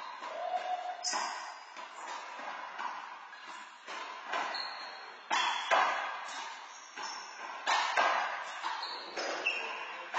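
Handball rally on an indoor court: a rubber handball smacks sharply against the walls and floor every second or so, each hit echoing, with brief sneaker squeaks among the hits.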